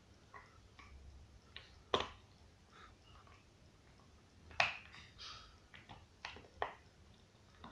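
Dog gnawing on a bone: a few scattered sharp clicks and cracks of teeth on bone between quieter stretches, the loudest about four and a half seconds in.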